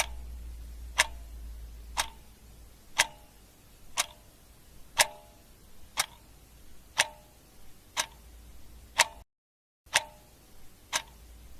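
Clock ticking sound effect, one sharp tick each second, over a faint low hum: a countdown timer running out the seconds for a search.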